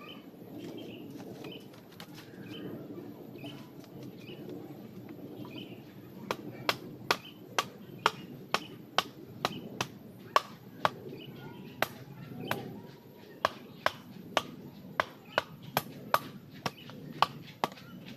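Repeated sharp strikes of a hand tool, about two a second, starting about six seconds in, with a brief pause just past the middle.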